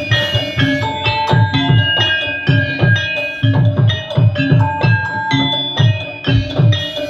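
Javanese gamelan ensemble playing with a drum kit: bronze-keyed saron metallophones struck with mallets in a steady melody over repeated low drum strokes that fall in pitch, about two a second.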